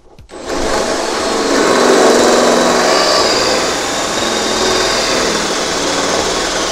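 Cordless drill running at speed with a 19 mm bit, boring out a hole in the sheet-metal inner skin of a van's rear door. It starts about half a second in and runs on steadily.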